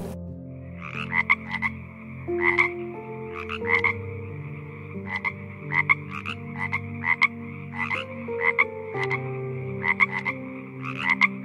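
Toads croaking: short, clicking calls repeated about twice a second, starting about a second in.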